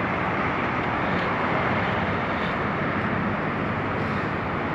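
Steady rush of wind and road noise from a pickup truck moving slowly, heard from the open truck bed with wind on the microphone.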